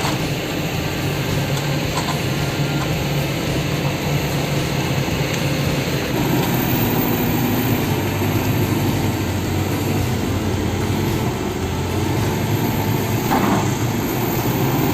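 Excavator's diesel engine running steadily, with a low even hum that fills out about six seconds in.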